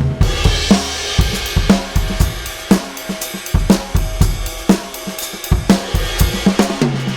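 Sampled acoustic drum kit from Addictive Drums 2, played live from an Efnote 5 electronic kit: a steady groove of kick, snare and cymbals that opens on a cymbal hit, with a tom fill falling in pitch near the end.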